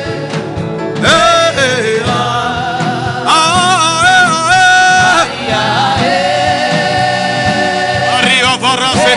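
Gospel worship music: a voice singing long, wavering held notes over an instrumental backing with a steady beat.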